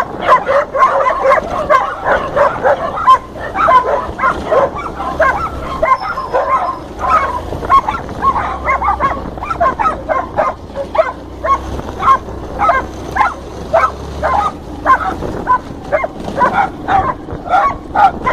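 Dog barking over and over in a rapid run of short, sharp barks, crowded together at first and then about two or three a second.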